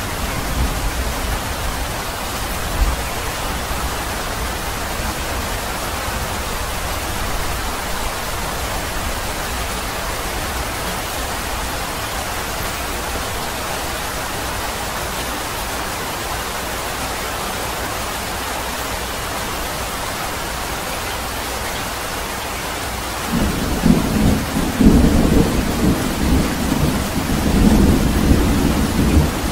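Steady rain falling, an even hiss. Near the end a low rolling rumble of thunder comes in and keeps going, louder than the rain.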